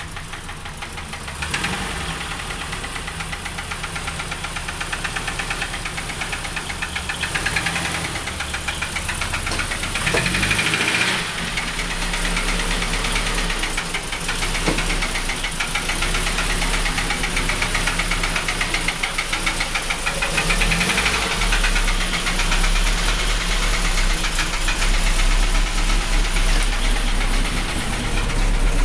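Mercedes-Benz W124 engine running with a knock, a fast, even ticking through its note. It is revved up briefly twice, about ten seconds in and again about twenty seconds in.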